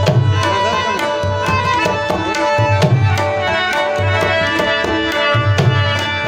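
Pashto folk music on harmonium, rabab and tabla: sustained harmonium notes and plucked rabab over a steady tabla rhythm. The tabla's deep bass strokes bend in pitch and come every second or so.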